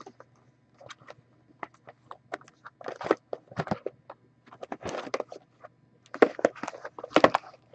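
Two small cardboard boxes of hockey cards handled and turned over by hand: scattered clicks and taps with short bursts of rustling and scraping, busiest near the end.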